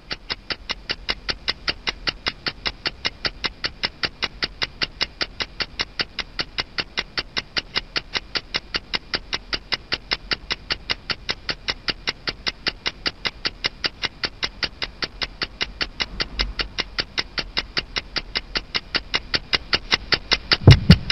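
Background music: a steady ticking beat of short, high clicks, about four a second. A few loud low thumps come near the end.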